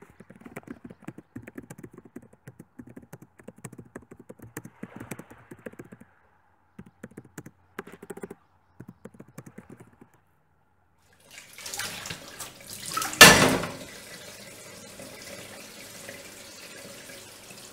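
Laptop keyboard typing in quick irregular runs of clicks. About eleven seconds in, a kitchen tap starts running into a steel sink, with one loud clank of a dish a moment later, and the water keeps running while a plate is scrubbed.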